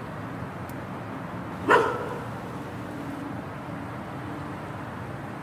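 A dog barks once, loudly, over a steady background hiss of outdoor ambience.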